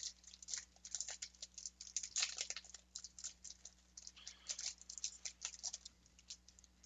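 Foil wrapper of a Magic: The Gathering booster pack crinkling and crackling in the hands as it is torn open and the cards are pulled out. The crackles are quiet and irregular, thinning out near the end.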